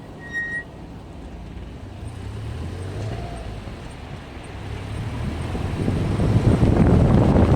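A short high-pitched squeal from Endless MX72 brake pads about half a second in. It sits over car engine and road noise that grows louder towards the end as the car picks up speed.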